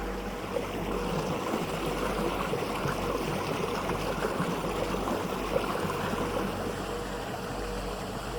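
Flowing water, a steady, dense rush of small splashes and trickles, like a stream running over stones.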